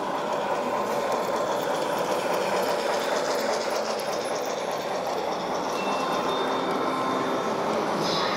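LGB G-scale (1:22.5) model steam locomotive and coaches running past, a steady whir of the locomotive's electric motor and gears with the wheels rolling on the rails.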